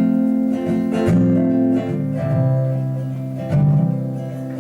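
Acoustic guitar strummed, playing the opening chords of a song: a new chord struck about once a second and left to ring.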